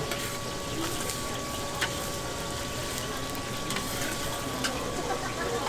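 Beaten egg on a cold-noodle sheet sizzling on a hot flat-top griddle, a steady frying hiss, with a faint steady tone underneath and a few sharp clicks.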